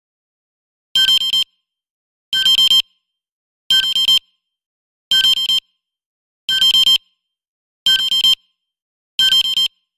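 Smartphone alarm beeping: seven short bursts of high electronic tones, about one every second and a half.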